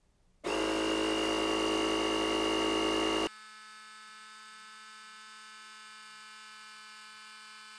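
The built-in air compressor of a JOMGAND JQP3750 jump starter starts about half a second in and runs with a steady motor hum while inflating a bicycle tire. A little after three seconds the hum drops suddenly to a much quieter steady hum.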